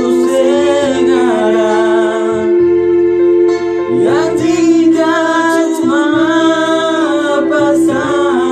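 A voice singing a spiritual song (lagu rohani) over a steady instrumental accompaniment, with long held and gliding notes.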